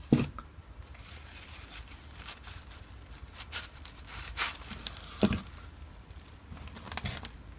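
Thin plastic plant pot being squeezed and handled, crinkling, with soil rustling as a potted plant's root ball is worked loose and slid out. A few dull knocks come through, the loudest right at the start and about five seconds in.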